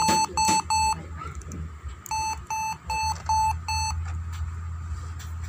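Dell Inspiron 1564 laptop's built-in speaker beeping as keys are pressed at the boot screen: two short beeps, then a quick run of about six identical beeps that stops about four seconds in.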